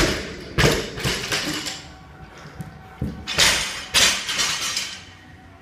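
Loaded barbell with rubber bumper plates dropped onto the lifting platform after the final overhead rep: it lands with a loud crash and bounces and clanks a few times in the first second and a half. A second run of loud clattering impacts comes about three to four seconds in.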